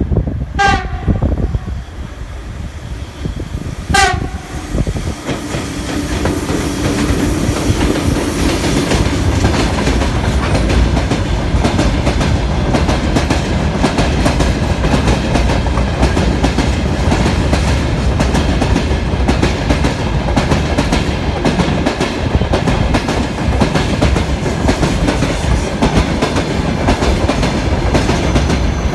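VL11M electric locomotive giving two short horn blasts about three seconds apart. Then the freight train passes: wheels clatter over the rail joints in a dense, steady rhythm, with a low hum in the first seconds of the pass.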